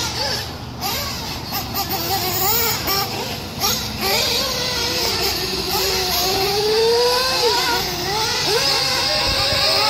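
Nitro RC buggy's ported O.S. Speed Spec 2 two-stroke glow engine with tuned pipe, revving up and down as it is driven around the track, its pitch rising and falling with the throttle and one longer rising, held and falling run near the middle.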